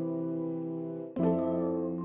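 Soft ambient background music: sustained chords, with a new chord starting a little over a second in.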